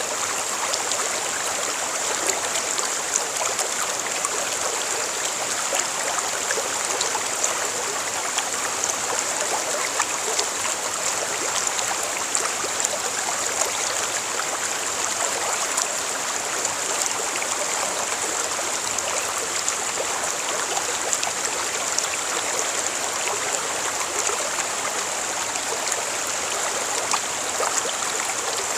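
Stream water running steadily: a continuous rush of flowing water with fine trickling flecks through it.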